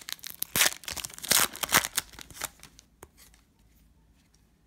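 Foil wrapper of a trading card pack being torn open and crinkled, a quick run of crackling tears over the first two and a half seconds. After that only faint handling of the cards.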